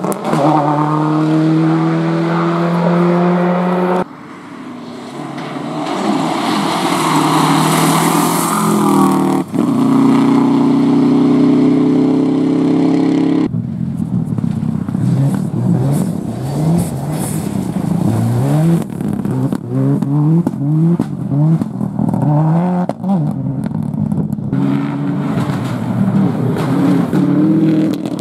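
Subaru Impreza rally cars' turbocharged flat-four engines at full stage pace, in a run of short clips. The revs climb and drop quickly through gear changes and throttle lifts, and one car swells in as it approaches.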